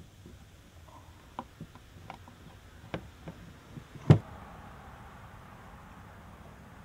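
A screwdriver turns the small screws of a grey PVC conduit body's cover, and the plastic cover seats against the body. A series of light clicks and taps comes from the screwdriver and plastic, with one sharper knock about four seconds in.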